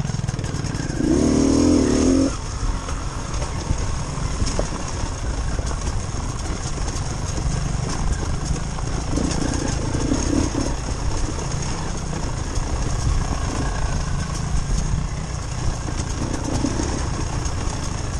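Long range trials motorcycle engine running steadily at low revs as the bike is ridden along a trail, with a short louder rise about a second in and a few smaller ones later.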